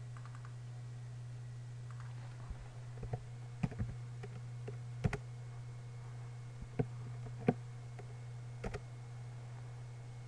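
Computer keyboard keys clicking in scattered keystrokes over a steady low electrical hum.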